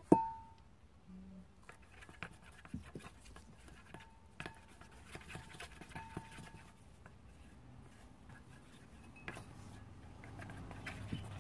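Wooden craft stick stirring white glue and green paint in a stainless steel bowl: faint scraping with light ticks against the metal. It opens with a sharp tap that rings briefly.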